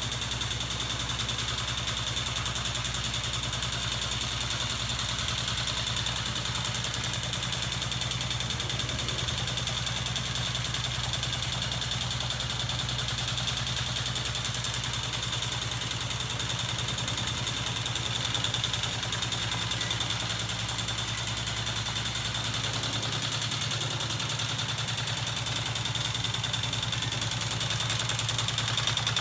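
Homemade electric-motor-driven magnet crankshaft mechanism running steadily, powered by a 24 V battery: an even mechanical hum with a steady high whine over it.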